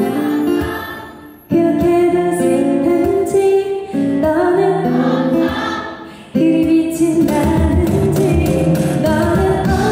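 A woman singing a Korean pop ballad live into a microphone with instrumental accompaniment. The music fades away twice, about a second and a half in and again after about six seconds, each time coming straight back in at full level.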